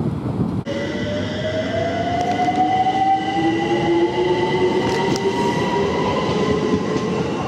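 London Overground Class 378 electric train pulling away, its traction motors giving a whine that rises slowly and steadily in pitch as it gathers speed, with a steady higher tone alongside, over the rumble of the train on the track.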